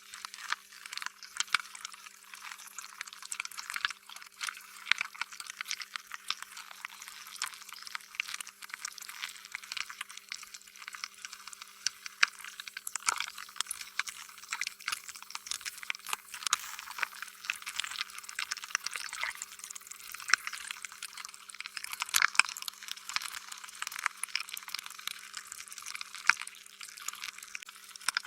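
Sticky, wet slime being squished and stretched: a dense, irregular run of small wet pops and clicks.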